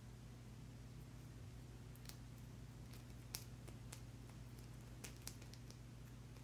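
Fingers and nails handling an angel aura quartz crystal cluster: a scattering of faint light clicks and scratches, starting about two seconds in, over a low steady hum.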